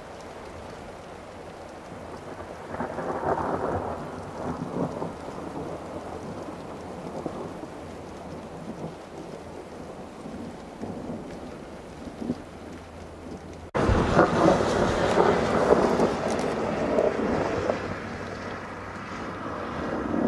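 Rolling thunder from thundersnow, in two peals: one builds a few seconds in and fades away, and a louder one starts suddenly about 14 seconds in and rolls on for several seconds.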